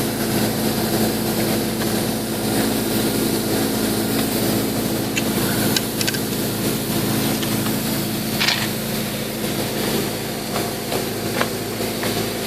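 Dry-ice blasting: a steady hiss of compressed air and ice crystals from a crushing blast nozzle, over the steady hum of a running machine, with a few sharp ticks.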